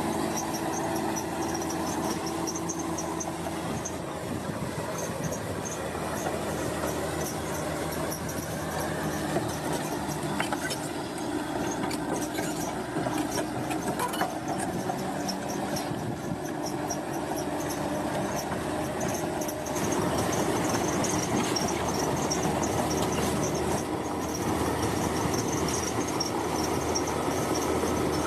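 Heavy road-construction machinery at work: steady engine noise with high metallic squealing, a few sharp clanks near the middle, growing a little louder about two-thirds of the way through.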